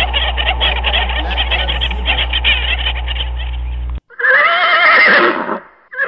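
A dense chorus of rapid animal calls over a low hum, cut off abruptly about four seconds in. Then a horse gives one long, wavering whinny, and a second whinny starts right at the end.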